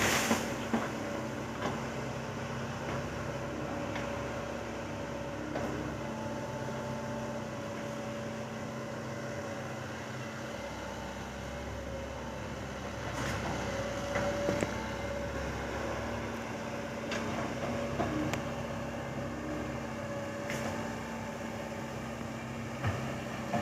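Large excavator's diesel engine running steadily, with a few sharp clanks from the machine at work.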